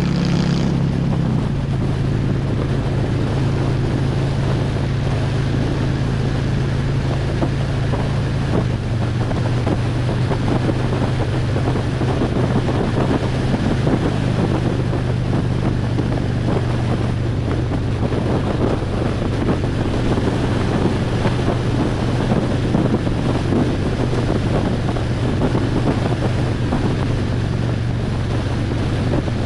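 Harley-Davidson Road Glide's V-twin engine running steadily at cruising speed, its note easing slightly lower about nine seconds in, with heavy wind rushing over the microphone.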